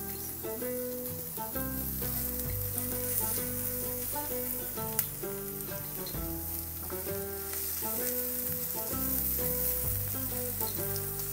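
Chopped onions and green chillies sizzling in hot oil in a nonstick frying pan, stirred with a silicone spatula, with one sharp tap about five seconds in. Instrumental background music with a bass line plays throughout.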